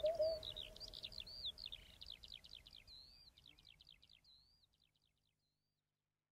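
Recorded birdsong in a music track: quick chirps, trills and whistled slurs with a held low note at the start, fading out over about four and a half seconds and then stopping.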